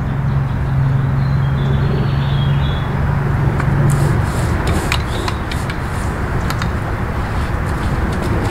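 Steady background rumble of road traffic, with a low vehicle hum that stops about four seconds in. In the second half come a few light clicks and taps as the telescoping painter's pole and its hook work the rope hitch against the tree trunk.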